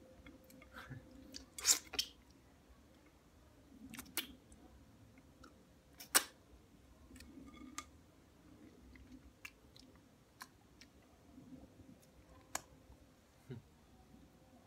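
Chewing of the last crunchy bits of salad, with sharp clicks every few seconds, the loudest about six seconds in, as a utensil knocks and scrapes against the glass salad bowl to clear it.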